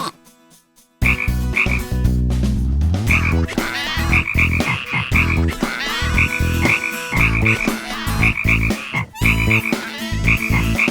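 Cartoon croaking, repeated short rattling calls over a low, steady thrum, starting suddenly about a second in.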